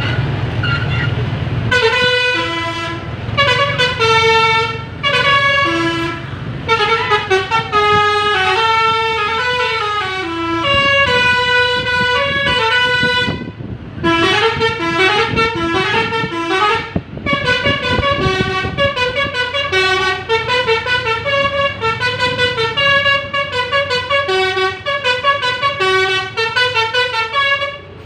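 Basuri telolet horn on an Aria Surya Trans coach playing a fast multi-note tune on its air horns. The bus engine runs low underneath, heard alone for about the first two seconds before the tune starts.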